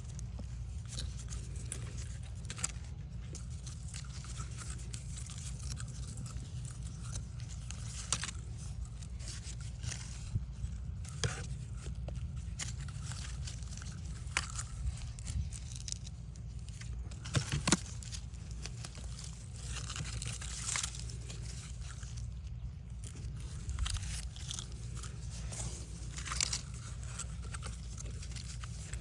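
Scattered small scrapes, crunches and clicks of hand work on a coaxial cable, over a steady low background rumble; the sharpest clicks come about two thirds of the way through.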